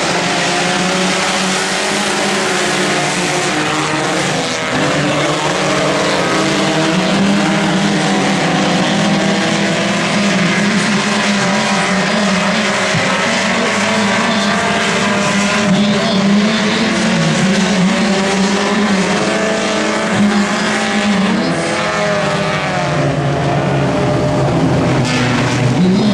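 Pack of front-wheel-drive race cars running on a dirt oval, several engines revving at once with pitches rising and falling over one another.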